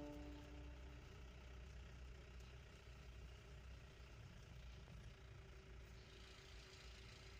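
Near silence: only the faint, steady low rumble of a vehicle's engine and road noise, heard from inside the moving vehicle's cabin.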